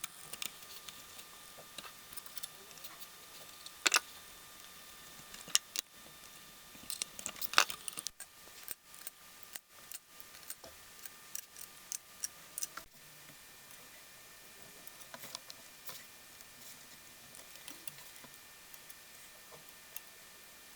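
Scattered metallic clicks and clinks of hand tools and engine parts being handled, with sharper knocks about four and seven and a half seconds in, over a faint steady high hum.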